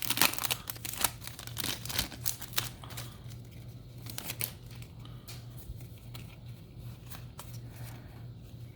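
Foil Yu-Gi-Oh! booster pack wrapper being torn open and crinkled. Sharp crackles are densest in the first three seconds, then give way to sparser, quieter clicks and rustles, over a low steady hum.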